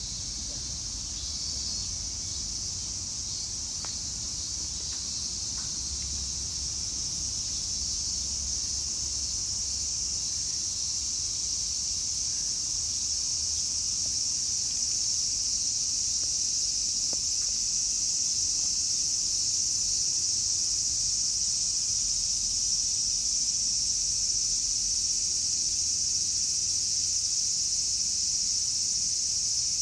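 A steady chorus of insects: one high, even shrill that grows slowly louder, with a faint low rumble underneath.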